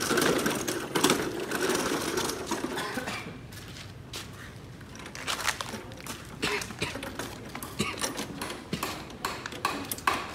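Irregular clicks and knocks of the lawn mower being handled, coming thicker in the second half. The engine is not running.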